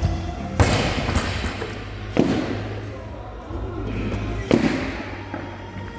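Three heavy thuds of gym equipment landing, about two seconds apart, over background music.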